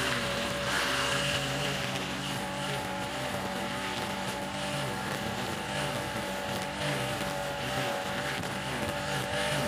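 Backpack brush cutter's small petrol engine running steadily, its spinning nylon-line head cutting grass.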